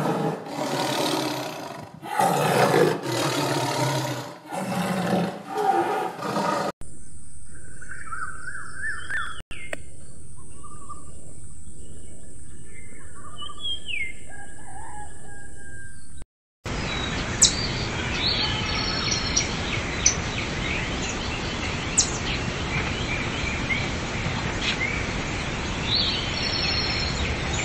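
Tiger roaring and growling in loud, irregular bursts, cut off suddenly about seven seconds in. Then birds chirping with short scattered calls over a steady high hiss, and after a brief gap, steady outdoor hiss with occasional bird chirps and sharp clicks.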